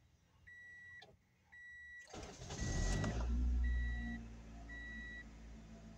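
Honda CR-V's four-cylinder engine cranked by the starter for about a second, then catching and settling into a fast idle. A dashboard warning chime beeps about once a second until near the end. This is a restart after cleaning the fast idle thermo valve and idle air control valve, to see whether the idle still drops.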